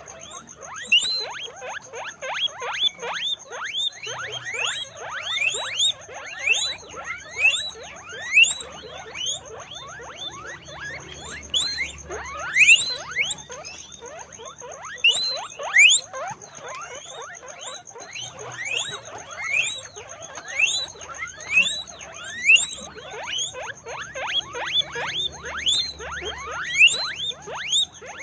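Guinea pigs wheeking: a dense run of short, high squeaks, each rising in pitch, several a second and overlapping.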